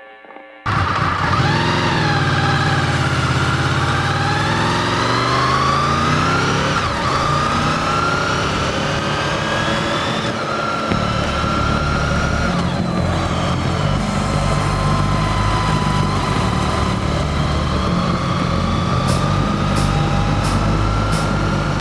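Honda VFR800 V4 motorcycle engine under way, starting suddenly about half a second in; its pitch climbs and falls with the throttle, with a couple of sharp drops at gear changes, over steady wind rush on the bike-mounted microphone.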